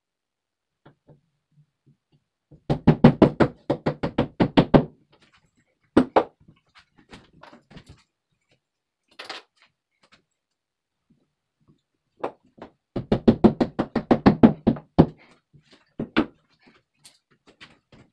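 Hammer knocking into drywall in two quick bursts of rapid blows, about seven a second and each burst about two seconds long, with a few single knocks between them.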